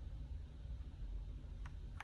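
Quiet room hum with a single faint click near the end: a keypress on a Redragon K668 mechanical keyboard while switching lighting modes.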